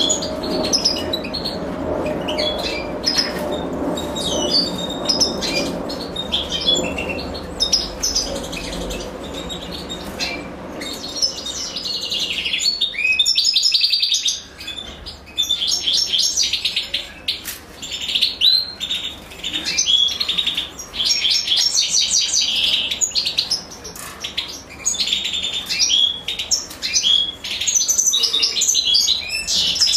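European goldfinches, a female and her nestlings, chirping in quick high twitters that come thicker and louder from about halfway through.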